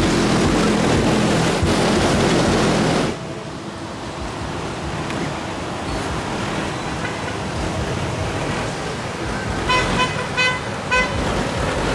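Street traffic noise, louder for the first three seconds and then cutting down abruptly. About ten seconds in, a vehicle horn toots in a quick series of short blasts.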